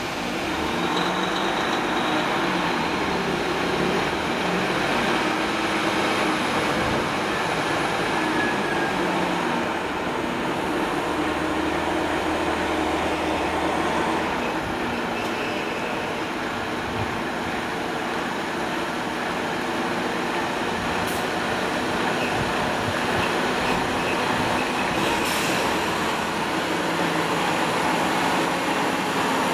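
Heavy-haulage truck's diesel engine running steadily as it pulls a vessel-bridge trailer combination past at crawling speed, with a continuous rumble and tyre noise from the many axles on a wet road.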